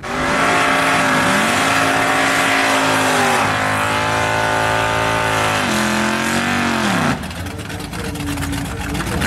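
A third-generation Chevy Camaro drag car's V8 held at high revs during a burnout. The engine note dips and comes back up a couple of times, then falls away about seven seconds in, leaving a rougher, hissier sound of spinning tires and a lower engine note.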